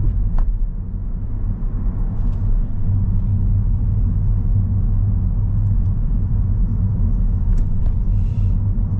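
Steady low rumble of a car's engine and road noise, heard from inside the cabin while driving slowly in traffic.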